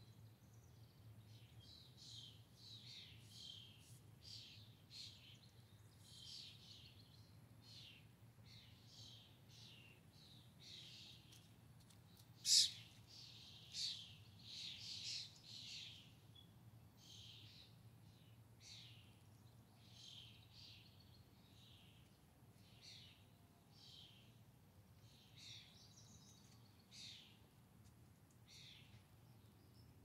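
Songbirds chirping and calling, many short high notes scattered throughout, with one sudden sharp loud sound about twelve seconds in and a busier, louder run of chirps just after it. A faint steady low hum runs underneath.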